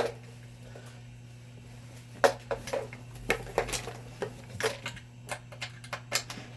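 A sharp click, then about a dozen irregular sharp clicks and knocks from about two seconds in, over a steady low electrical hum.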